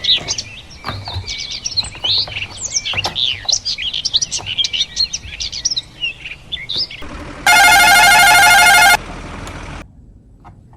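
Birds chirping busily with many short quick calls, fading out after about six seconds. About a second later, a loud warbling electronic tone with a fast, even pattern sounds for about a second and a half, then cuts off.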